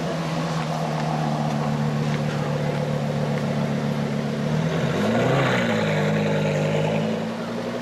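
Lamborghini Gallardo LP570-4 Superleggera's V10 running at low revs through its Quicksilver Supersports exhaust as the car moves off, a steady drone; about five seconds in the revs rise briefly and fall back, and the sound eases a little near the end.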